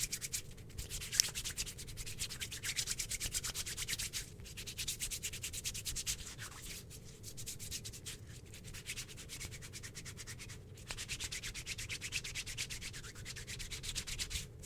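Hands rapidly scrubbing and rubbing close to the microphone: ASMR shampoo-lathering sounds in fast, even strokes with a few short pauses.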